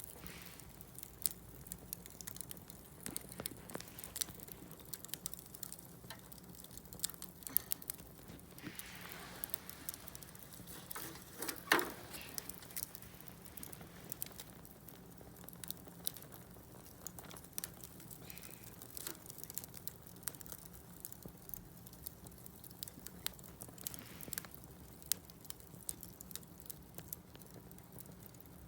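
Wood bonfire crackling, with irregular sharp snaps and pops from the burning wood. A brief hiss comes shortly before a louder pop about twelve seconds in.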